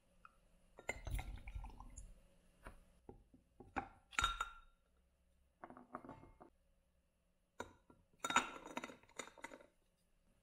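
Grass jelly cubes tumbling out of a glass bowl into a glass tumbler with a soft thud about a second in, then round ice balls dropped in and clinking against the glass, sharpest around the middle and in a run of clinks near the end.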